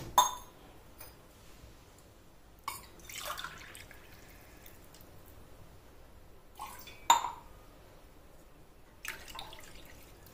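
Water poured from a tumbler into milk in a frying pan, in about four short pours and splashes, with a couple of sharp clinks of the tumbler.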